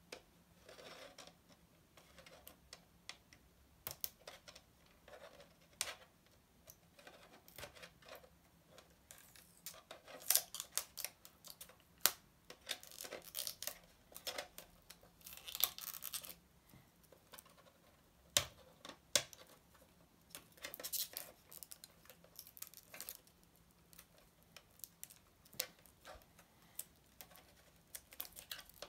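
Handling noise from a 1:18 scale diecast model car turned over in the hands: irregular light clicks, taps and brief scratchy rubs as its metal body and plastic parts shift and knock.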